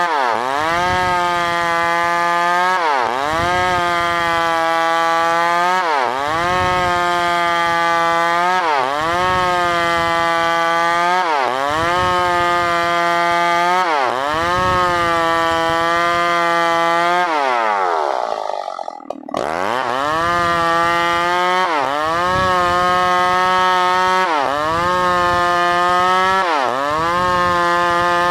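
New West PRO 888 two-stroke chainsaw running at high revs while cutting wood. Its pitch dips sharply and recovers about every three seconds, and about two-thirds of the way through it falls away almost to nothing before climbing back up.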